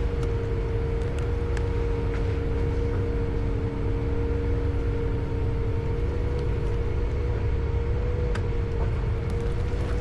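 Steady motor hum holding two even tones, over a constant low rumble, with a few faint clicks.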